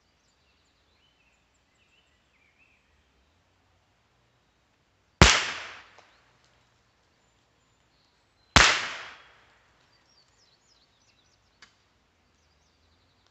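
Two .22 LR rifle shots about three and a half seconds apart, each a sharp crack with a fading echo, heard from beside the target. Faint birdsong in the background.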